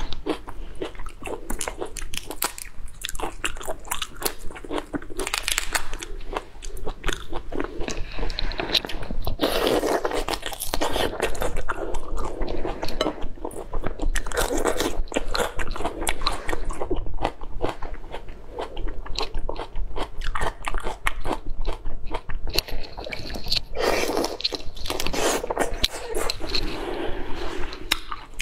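A person biting and chewing raw marinated prawns and raw red onion, close to a lapel microphone, with many crisp crunches throughout.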